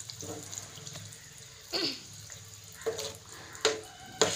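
A spoon stirring thick, simmering paneer masala gravy in a nonstick frying pan: about four short wet scrapes and plops, roughly a second apart, over a faint steady background.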